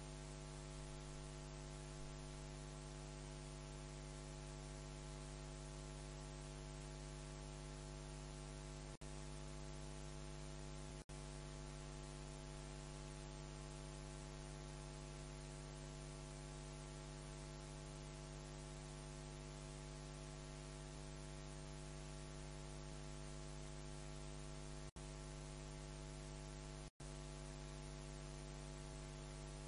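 Steady electrical hum with a constant hiss, the noise of the sound system with no one speaking. The sound drops out briefly four times.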